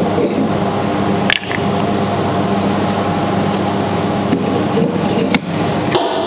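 Steady hum of running machinery with several tones held throughout, broken by two sharp clicks, one about a second and a half in and one near the end, while a welding-wire spool is handled and set on a wire-feeder spindle.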